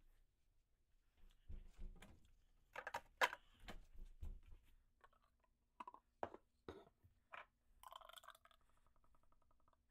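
Quiet kitchen handling noises: a series of light knocks and clinks as a plastic blender cup and other things are handled and set on the counter, then a faint pulsing buzz near the end as something is poured from a silicone measuring cup into the blender cup.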